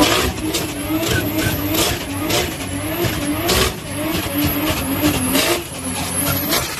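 Mk4 Toyota Supra's inline-six revving up and down about twice a second as its rear tyres spin and squeal in a burnout, with sharp cracks now and then.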